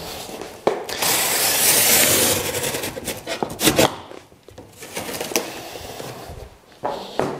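Cardboard packaging rustling and scraping as it is pulled and dragged across the floor, loudest about a second in and for the next second and a half, with a few sharp knocks later on.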